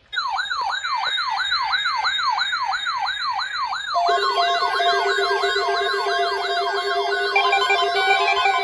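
Emergency alert tone: a loud siren-like signal made of quick falling pitch sweeps, about three a second. About four seconds in, a second steady alert tone joins it, and a higher tone is added near the end.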